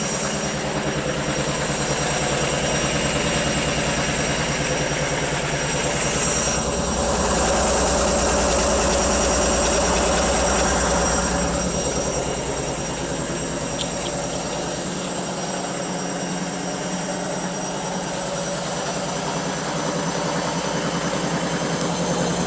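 Indesit IWC6105 washing machine's drum spinning with a loud, continuous rumbling noise, louder for a few seconds near the middle: the drum bearings have failed. It shouldn't be that loud.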